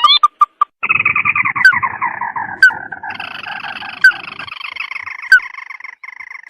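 Recorded bird-lure call for the sintar mata merah: a rapid trill that slides down in pitch, then a steady higher rapid trill, with a sharp single note about every second and a half.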